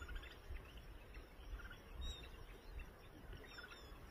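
Faint outdoor ambience: a small bird chirps a few short notes at the start and again about two seconds in, over a low rumble.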